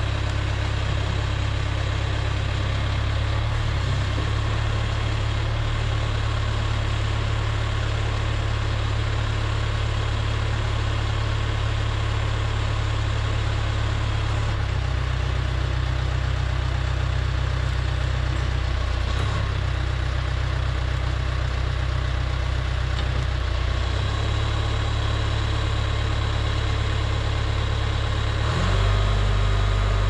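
John Deere 410B backhoe's diesel engine running steadily while the boom and jaw bucket are worked. Its note shifts a few times as the hydraulics take load.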